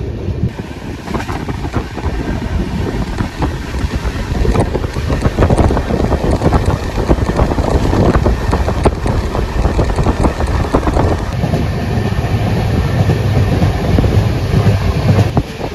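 Passenger train coach running on the rails, heard from on board: a steady rumble with dense clattering of the wheels over the track. It grows louder a few seconds in as the train gathers speed out of a station.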